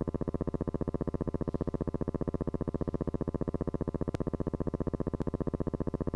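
A steady, pulsing electrical buzz that throbs about a dozen times a second, with two sharp clicks about a second apart near the end.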